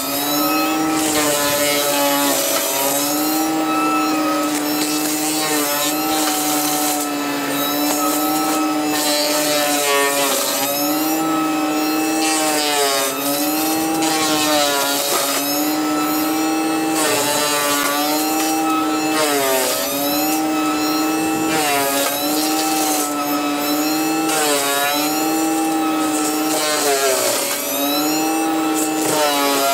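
Forestry mulcher on a Caterpillar compact track loader running with a steady high whine that sags in pitch and recovers every couple of seconds as the cutting drum chews into brush and small trees.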